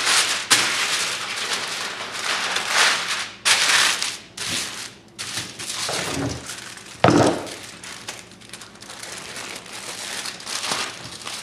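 Heavy-duty aluminum foil crinkling and crumpling in irregular bursts as it is wrapped and squeezed tight around the base of a deer antler, with a heavier thump about seven seconds in.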